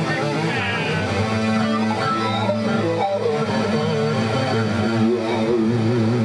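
A rock band playing an instrumental passage in rehearsal: electric bass guitar and keyboard with drums, and a wavering lead melody over a steady bass.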